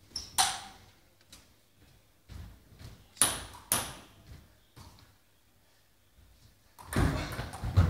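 Table tennis ball clicking sharply a few times, spaced seconds apart, as it is bounced before the serve. From about seven seconds in come quicker, louder clicks of the ball on the bats and table as the rally starts.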